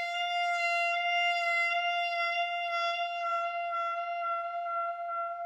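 Solo clarinet holding one long high note with vibrato, right after a quick rising run, slowly dying away.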